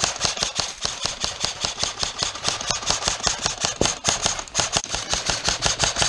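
Airsoft electric rifle, a Krytac Trident MK2 CRB, firing full auto in one long continuous burst: a rapid, even stream of sharp clattering shots.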